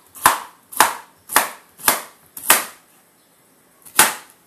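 Kitchen knife chopping through a pineapple onto a plastic cutting board: five sharp chops about half a second apart, a pause, then one more near the end.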